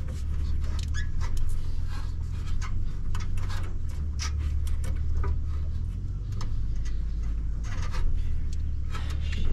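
Scattered light clicks and knocks of hands working a rubber radiator hose onto the truck's radiator, over a steady low rumble.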